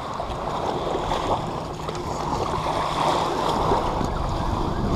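Wind rumbling on the microphone over water splashing and sloshing, steady throughout with small irregular splashes.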